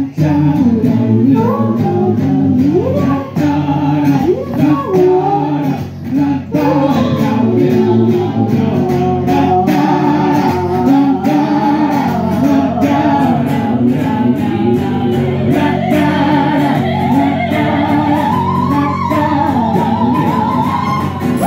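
Live band music: female voices singing a melody with harmonies over a strummed acoustic guitar, with a steady strumming or tambourine rhythm throughout.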